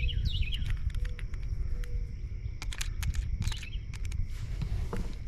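Small birds chirping over a steady low rumble, with scattered sharp clicks of small parts being handled as screws go into a plug housing: a quick cluster about midway and another near the end.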